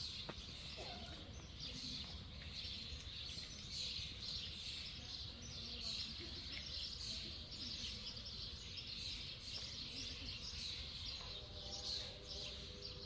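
A chorus of many small songbirds chirping and twittering without pause, high and dense, over a low background rumble.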